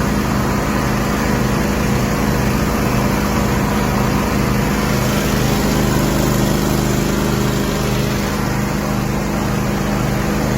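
Engine of a rotary agricultural sprayer running steadily at constant speed, with a low pulse repeating about twice a second.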